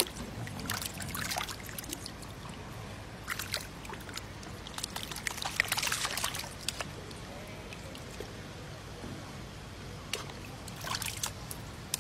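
Water sloshing and splashing in a plastic basin of goldfish, then pouring out as the basin is tipped into a pond. The longest and loudest pour comes about halfway through, with further splashes near the end.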